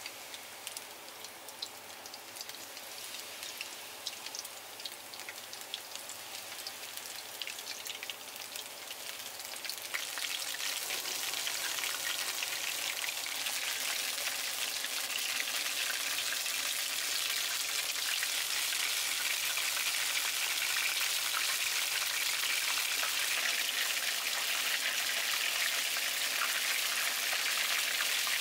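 Tempura batter deep-frying in a small pan of hot oil: a steady crackling sizzle that gets clearly louder about ten seconds in and holds there.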